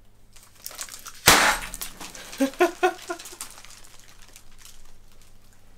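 A party popper going off with one sharp bang about a second in, followed by a short burst of laughter.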